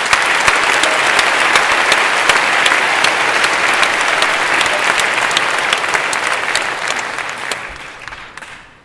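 Audience applauding: a dense, steady clatter of many hands clapping that dies away near the end.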